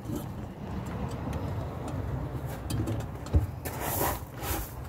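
Rubbing and small clicks of a gloved hand working a new headlight bulb into the back of a Vauxhall Corsa's headlight unit, over a low rumble. There is a single knock about three and a half seconds in.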